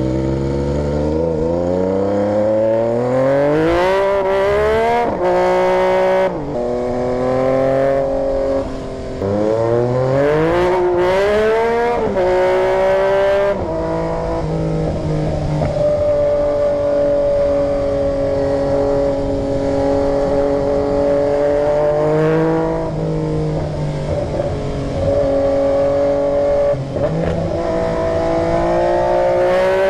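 Yamaha MT-09 three-cylinder motorcycle engine accelerating through the gears: the pitch climbs, drops at each upshift and climbs again several times, then holds fairly steady at cruise for a stretch before more throttle and shifts near the end.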